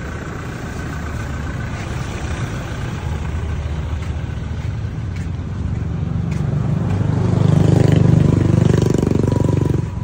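Street traffic, with the engine of a passing motor vehicle growing louder from about six seconds in, loudest around eight seconds, then cutting off sharply near the end.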